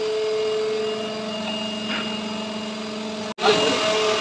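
Steady hum of running machinery, with several constant tones. It drops out for an instant a little over three seconds in, then comes back louder and rougher.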